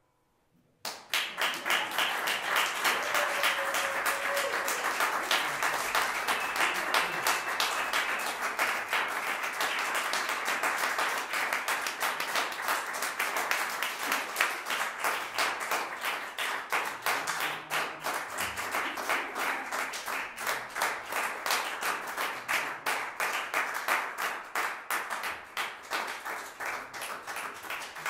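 Small audience applauding after a live improvised music set. The clapping starts about a second in, after a moment of near silence, and thins out toward the end.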